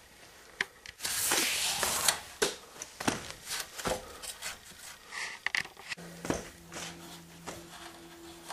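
Hands working rope around wooden posts and a metal frame: rustling, scraping and a series of sharp knocks. A steady low held note comes in about six seconds in.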